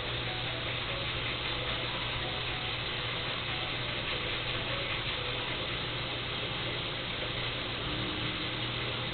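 Steady hum with an even hiss from aquarium equipment, such as the tank's pump or filter, running throughout.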